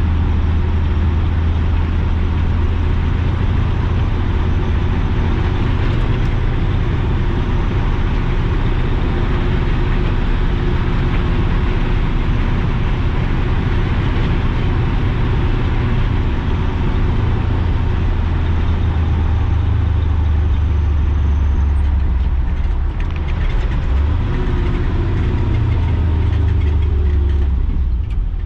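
Chevy 6.0 Vortec V8 running steadily under load as the K30 truck pulls a heavy trailer, with road and drivetrain noise. About three-quarters of the way through, the engine note briefly dips and then changes pitch.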